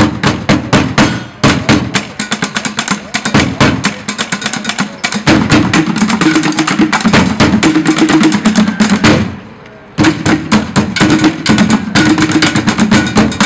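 Drum line playing improvised percussion: a plastic trash can, buckets, and pots and pans struck with sticks in fast, dense rhythms. The playing breaks off for under a second about nine seconds in, then starts again.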